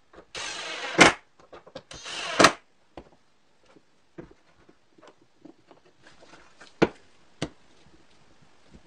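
Cordless impact driver driving two screws into wood, each a short whirring run that ends in a sharp snap as the screw seats. After that come light wooden knocks and clicks as parts are handled and fitted together on the bench.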